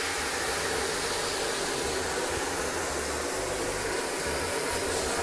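Wine from the marinade poured into a hot pot of browned lamb shanks, hissing and sizzling steadily as it deglazes the pan.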